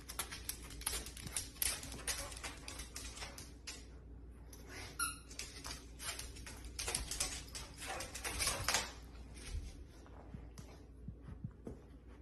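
Two dogs playing and wrestling with a toy on a hard laminate floor: many quick clicks and taps of claws and paws, with one short squeak about five seconds in.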